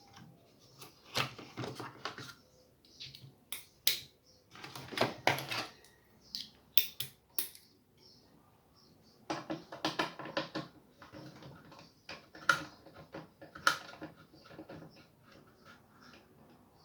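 Clicking and rattling of hard plastic and small parts being handled while a Logitech Z313 subwoofer is taken apart: several bursts of clatter, with sharp single clicks in between.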